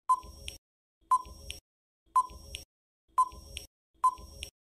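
Countdown timer sound effect: five short electronic beeps, one each second, each starting sharply and fading quickly.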